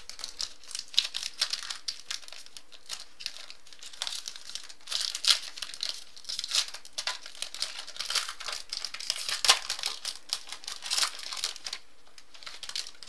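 Plastic wrapper of a pack of football trading cards being torn open and crinkled by hand, a dense run of irregular crackles that eases off near the end.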